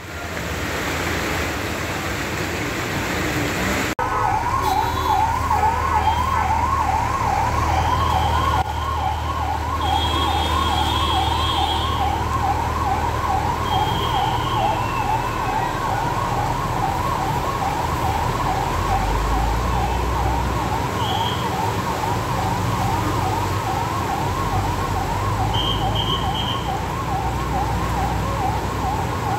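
Emergency vehicle siren on a fast yelp, its pitch rising and falling several times a second, starting about four seconds in and continuing over the low rumble of traffic. Before it, a steady rushing noise.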